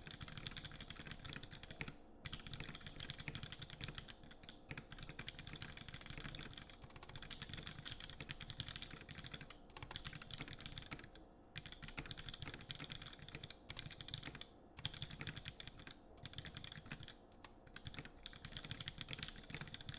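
Fast typing on a custom 65% mechanical keyboard with a cast clear-resin case, a carbon fiber plate and unlubed Punchy black switches (all-milky-housing Gateron linears). It is a rapid stream of key clacks with a few brief pauses, and the housings give it a sound the owner calls tinny.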